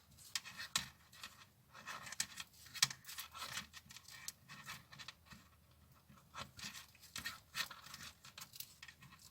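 Crochet hook working single crochet stitches in paper raffia yarn: faint, irregular scratching and crinkling as the stiff yarn is pulled through the stitches.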